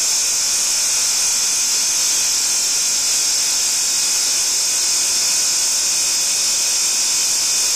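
Hydraulic power pack driving a Plarad hydraulic torque wrench, running steadily with an even, high hiss that does not change while the wrench is under pressure on a large nut.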